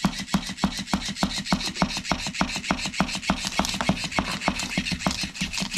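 Battery-powered flopping fish cat toy running, its tail flipping and slapping in a rapid, even rhythm of clicks, several a second.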